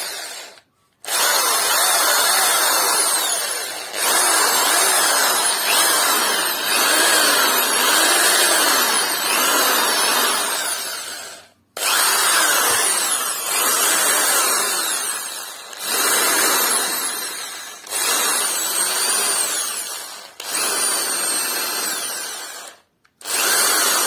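Atlas corded drill's motor run in about seven trigger pulls, each a loud high whine that winds down with a falling pitch when released. It runs without cutting out: the loose contact in its cord is repaired.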